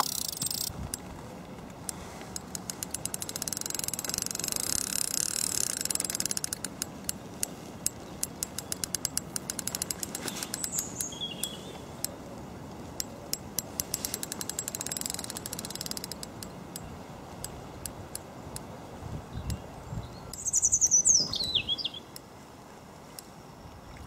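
Shimano Baitrunner DL2500FA spinning reel ticking in runs of rapid clicks as a hooked carp pulls line off the spool. Birds chirp briefly, with one louder falling chirp near the end.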